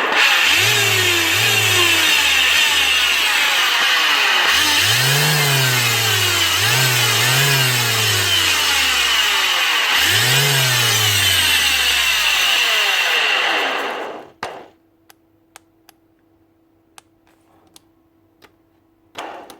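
Bosch GEX150AC orbital sander running loudly, its motor speed surging up and down several times, then cutting off about fourteen seconds in. The uneven running is taken for a faulty switch and the loud running for worn bearings.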